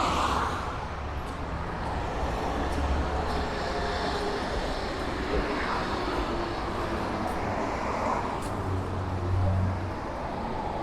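Steady city street traffic: cars passing with engine rumble and tyre noise.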